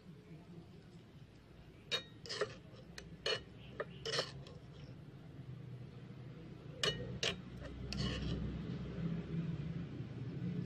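A tiny metal spoon clinking and scraping against a miniature stainless pan and bowl while scooping stir-fried bean sprouts. About eight light clinks come in two clusters, followed by a short scrape.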